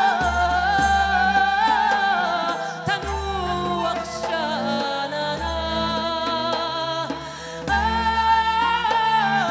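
A woman singing with wide vibrato over a live band, with a low bass line changing note every second or so and goblet-drum strokes underneath.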